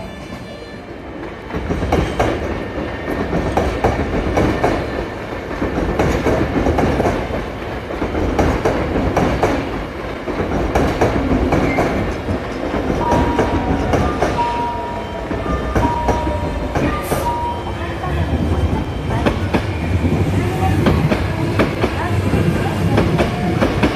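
Hankyu 1000-series electric trains running into station platforms, their wheels clicking over the rail joints under a steady rumble. Partway through, a repeated short electronic beep sounds four times, and a faint whine falls in pitch as the train slows.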